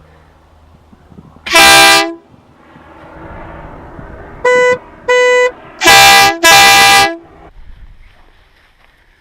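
Horns of a 1977 VW Westfalia sounding in turn. First comes one full-toned blast of the compressed-air horn, and about three seconds later two short, thinner toots of a plainer horn. These are followed at once by two more loud air-horn blasts.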